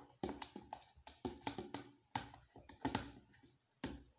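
Irregular clicks and taps, several a second, of a utensil knocking and scraping in a bowl as wood glue and Persil detergent are stirred into slime.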